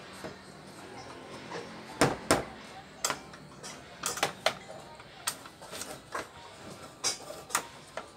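Irregular sharp clicks and knocks of metal and plastic parts as a wall fan's electric motor is handled and its housing ends are worked apart by hand, about nine taps in all, mostly in the second half.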